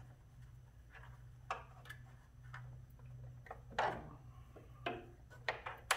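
Scattered small clicks and taps of a screwdriver turning an Allen screw into a motorcycle driving-light mounting bracket, the light's housing knocking lightly against the bracket; the loudest click comes about four seconds in. A steady low hum runs underneath.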